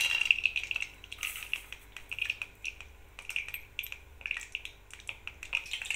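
Cashew nuts frying in hot ghee in a kadai: a steady run of small irregular crackles and pops over a light sizzle.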